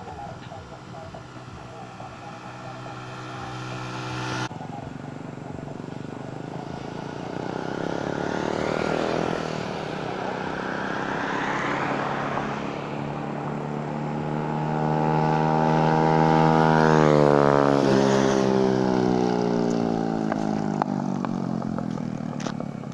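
Suzuki Smash underbone motorcycles, small single-cylinder four-strokes, run hard down the highway and pass close by. Their engine note climbs as they approach at speed and drops as they go past. The loudest pass comes about two thirds of the way through, and there is an abrupt cut in the sound about four seconds in.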